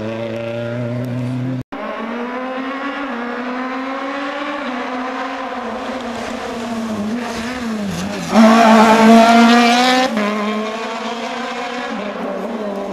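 Rally car engine at full throttle, its pitch climbing and dropping through gear changes. It is loudest for about two seconds from around eight seconds in as the car passes close, then drops off suddenly. There is a brief gap in the sound just under two seconds in.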